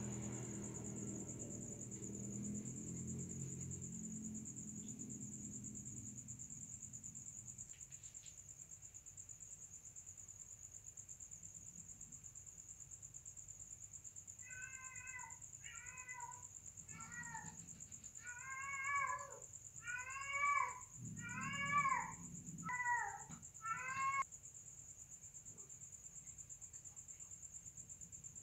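Domestic cat in heat yowling: a run of about nine short, arching calls from about halfway through, each a few tenths of a second long, under a steady high cricket trill.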